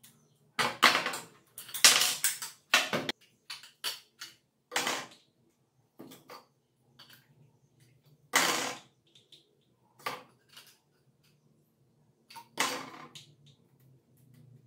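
Small metal tools and parts clinking and clattering on a wooden tabletop while an angle grinder's guard is taken off, in irregular knocks, several close together in the first three seconds, then single ones spaced out. A faint steady hum lies underneath.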